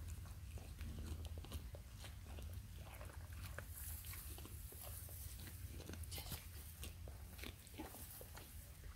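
A goat chewing raw carrot, with irregular crisp crunches as it bites and grinds the pieces.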